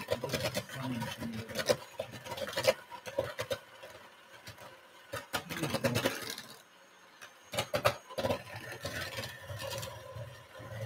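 Scattered light clicks and scrapes of a metal measuring spoon against a spice jar and a steel mixing bowl as ground spice is measured out, with a short lull about two-thirds of the way in.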